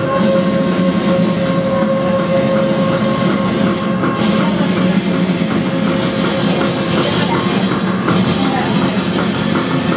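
Loud electronic noise music from homemade, circuit-bent electronics run through a small mixer: a dense, harsh texture over a steady held tone, with a fast pulsing coming in near the end.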